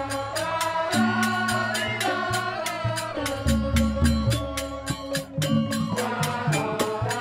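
Balinese joged bumbung gamelan playing: bamboo grantang xylophones struck with mallets in fast patterns, over kendang drumming and a low stepping bass, with even percussive strokes about four a second. A voice sings along.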